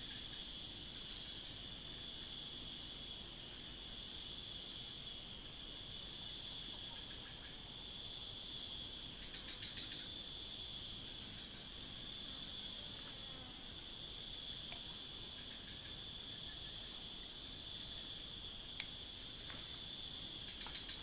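Insects chirring steadily in the forest: a high continuous drone with a softer, pulsing chirr above it. One short click near the end.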